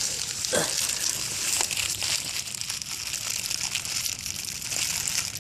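A steady crackling hiss, like rustling or sizzling.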